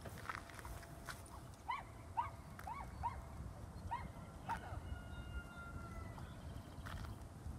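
Footsteps of a person and a dog on asphalt, with a quick run of about seven short squeaky calls, each rising and falling in pitch, in the middle.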